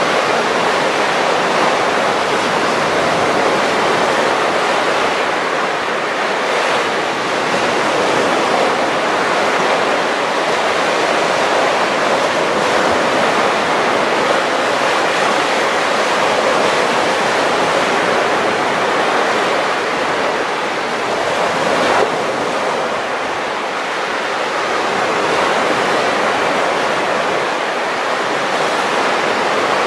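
Baltic Sea surf breaking on a sandy beach: a steady wash of small waves that swells and eases as each one rolls in and runs up the sand. One brief knock about two-thirds of the way through.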